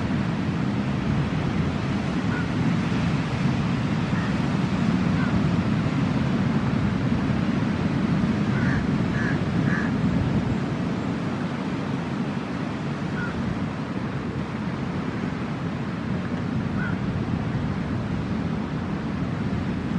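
Steady rumble of ocean surf and wind, with a few short high calls over it, three in quick succession about nine seconds in.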